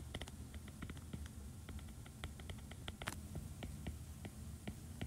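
A stylus tapping and clicking on a tablet screen while handwriting an equation: faint, irregular small taps, several a second.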